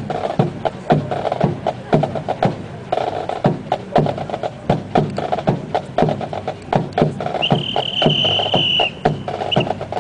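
Marching drums playing a steady, sharp-hitting cadence. Near the end a high steady whistle-like tone sounds for about a second and a half, with a short blip after it.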